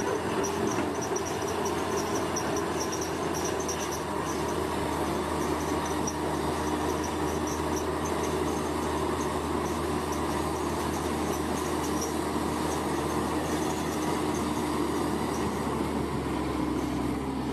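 Heavy diesel construction machinery running steadily: a deep, unbroken drone with a steady hum above it.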